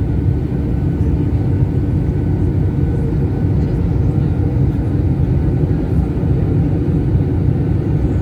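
Steady low noise of a passenger airliner's engines and airflow heard from inside the cabin, with a few faint steady tones above it.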